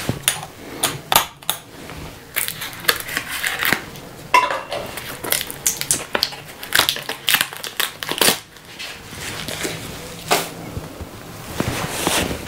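Irregular crackling and rustling of the packaging of new spade bits being torn open and handled, with scattered clicks and taps as the bits are handled and fitted into the impact drivers' hex chucks.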